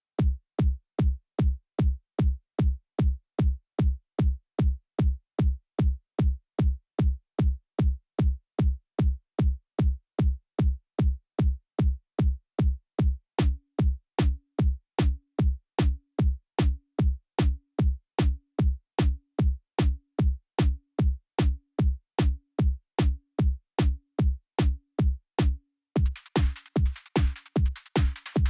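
Synthesized electronic kick drum from the Kilohearts Phase Plant synthesizer, hitting steadily about twice a second, each deep thud topped by a short click. About halfway through, a higher tone joins each hit, and near the end a hissing noise layer comes in over the beat.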